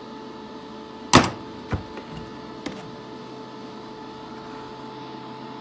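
Handling knocks from welding gear being picked up and set down at a steel workbench: one sharp knock about a second in, then two lighter ones, over a steady hum.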